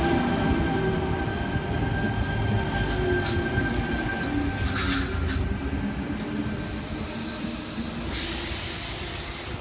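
Sydney Trains Tangara double-deck electric train running past the platform: a steady rumble of wheels on rail with a faint steady whine and a few sharp clicks, slowly fading.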